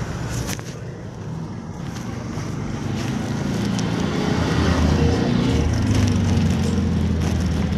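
A motor vehicle's engine running close by in street traffic, a low steady hum that grows louder over the first few seconds and then holds.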